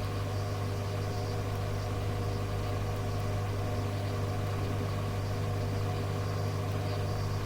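Steady hum with hiss on an air-traffic radio channel between transmissions, a layered drone of steady tones that does not change.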